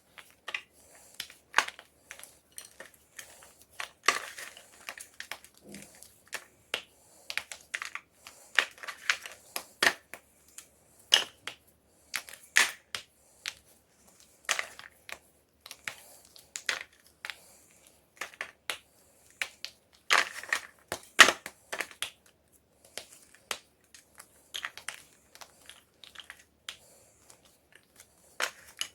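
Homemade gym chalk crunching as it is crushed: irregular sharp cracks and crumbles, coming in clusters with short pauses between them.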